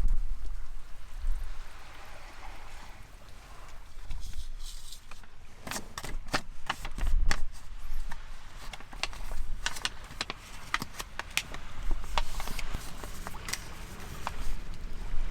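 Low wind rumble on the microphone, with a long run of sharp clicks and knocks through the middle.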